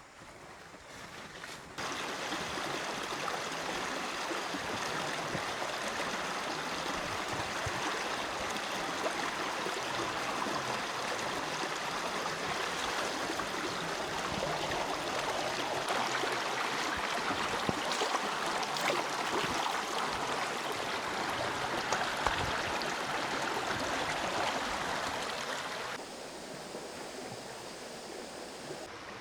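Forest stream flowing, a steady rush of running water. It jumps suddenly louder about two seconds in and drops back a few seconds before the end.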